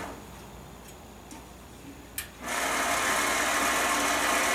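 Wen 5-inch metal-cutting band saw: the motor and blade running die away and stop as the trigger is let go. A few light clicks follow, then a sharp click a little after two seconds in, and the saw starts up again and runs steadily.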